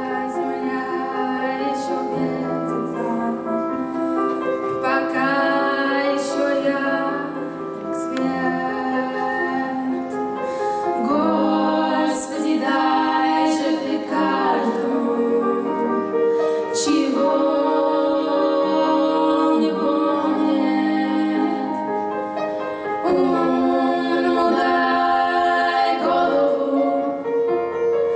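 Live female vocals singing a slow ballad with long held notes, accompanied by a grand piano.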